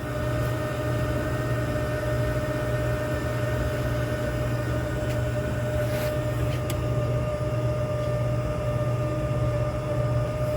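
An industrial chiller's fluid pump running just after power-up: a steady machine hum with a steady whine over it. Two faint ticks come about six seconds in.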